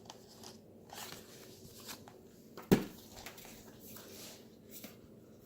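Faint rustling and light clicks of paper and card being handled, with one sharp knock a little before the middle, as of something set down on a table.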